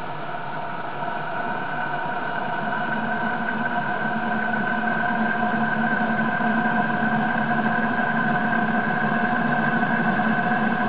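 Eberspacher diesel hot-air heater running just after ignition, a steady mechanical hum and whine from its burner and fan that grows gradually louder. It runs without an exhaust silencer.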